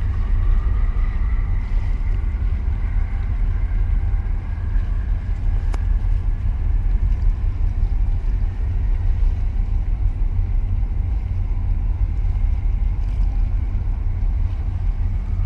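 Large container ship under way, its engines a steady low rumble across the water, mixed with wind buffeting the microphone.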